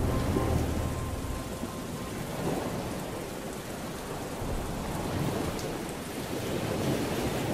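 Steady rain falling, an even hiss that swells and eases slightly. The last notes of a music track die away in the first second.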